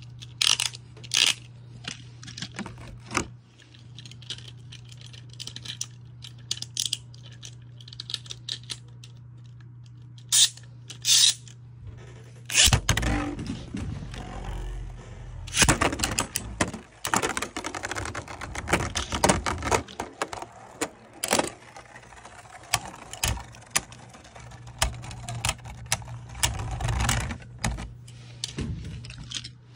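Beyblade Burst spinning tops in a plastic Beystadium. Sharp plastic clicks are followed about twelve seconds in by a launch, then a spell of clattering and rattling as the tops spin and knock against the stadium and each other. Scattered clicks follow, and a steady low hum runs underneath.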